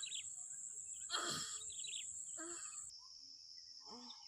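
Steady high-pitched insect chorus, dropping lower in pitch about three seconds in, with a few short bird chirps.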